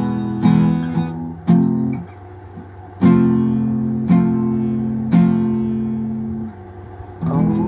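Acoustic guitar strumming chords, single strokes left to ring out, with brief pauses about two seconds in and again near the end.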